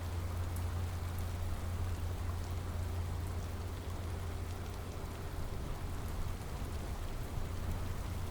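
Steady rain falling, with scattered drop ticks over a constant low rumble.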